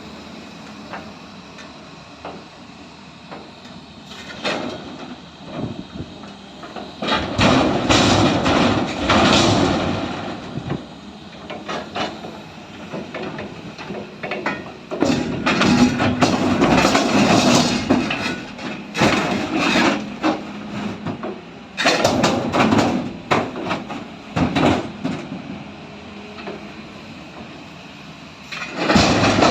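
Freight wagons being unloaded: irregular bursts of clattering and banging over a low steady background, loudest about a quarter of the way in, around the middle, and again near the end.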